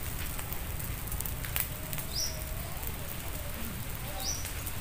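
Open fire of dry twigs and straw burning, a steady crackling hiss with a few sharper pops. Two short high chirps stand out, about two seconds in and near the end.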